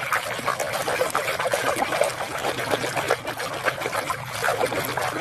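Water trickling and splashing steadily as muddy toys are rinsed clean.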